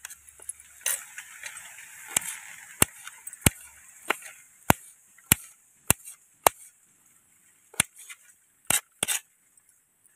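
Small kitchen knife chopping green chillies on a metal plate: about a dozen sharp, separate knocks of the blade striking the plate, irregularly spaced half a second to a second apart.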